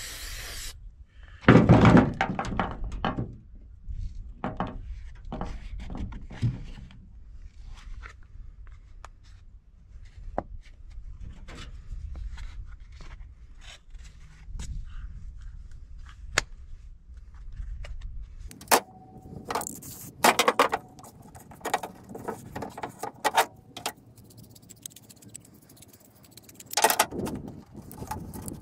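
Scraping, rubbing and light knocks of hand work with sheets of thick paper gasket material and a metal seal-housing flange on a truck tailgate. A low background rumble stops abruptly about two-thirds of the way through.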